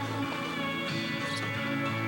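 Music with steady held notes.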